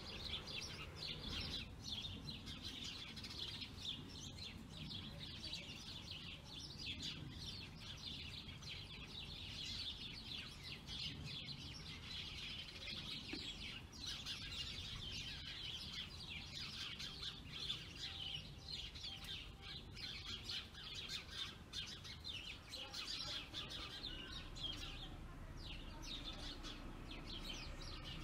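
Garden songbirds chirping and twittering continuously, many short high calls overlapping.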